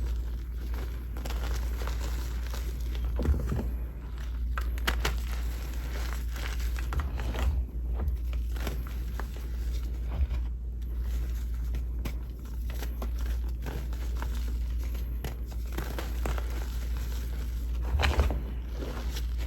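Gym chalk being crushed and crumbled by hand: continuous crunching and crackling with many small sharp snaps, a few louder ones about five seconds in and near the end.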